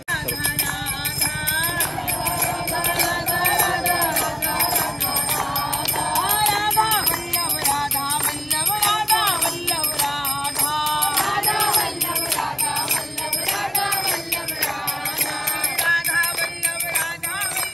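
Devotional singing, a bhajan-style chant, over steadily jingling percussion such as bells. It comes in suddenly at the start.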